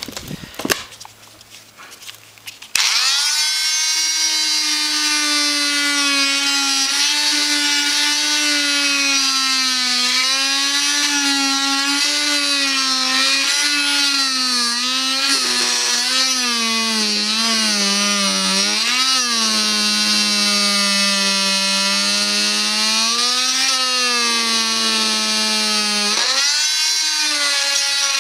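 A 250-watt Renovator oscillating multi-tool starts up about three seconds in, after a few knocks, and saws through plywood with a steady buzzing whine. Its pitch sags and recovers as the blade loads up in the cut.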